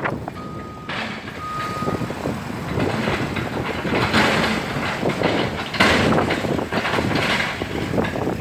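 Cat 313F L hydraulic excavator running and working, its engine and hydraulics surging unevenly. Two short beeps of an alarm come in the first two seconds.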